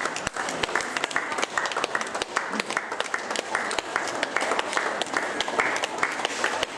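Audience applauding, a dense steady patter of many hands clapping, with some talk underneath.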